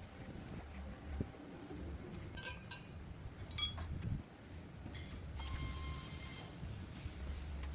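Several light metallic clinks with a short ring, over a low steady rumble, then a steady high-pitched whine that starts about five seconds in.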